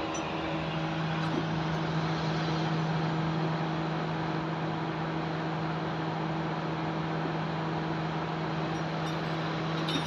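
Car engine running, heard close up in the engine bay: a steady mechanical hum and whir, with a low hum note that comes in about half a second in and holds steady.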